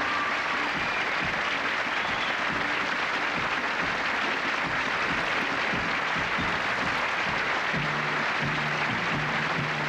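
Theatre audience applauding steadily over the pit orchestra playing; a low bass line comes in about eight seconds in.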